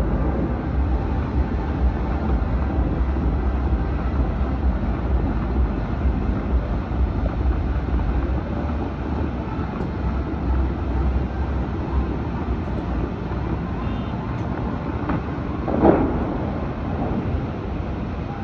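Wind buffeting the microphone over a steady, distant city roar of traffic heard from high above the street. The low rumble of the wind eases about halfway through, and a short louder sound stands out near the end.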